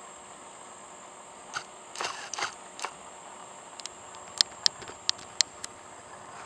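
Camera handling noise: a few soft knocks about two seconds in, then a run of five sharp clicks, over the steady high-pitched chirring of crickets.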